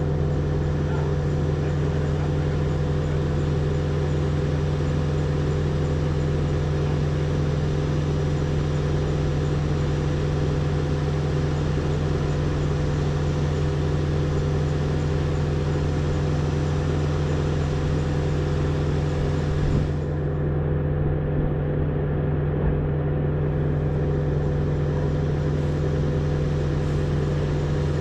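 Engine running at a steady, unchanging speed, a constant low drone.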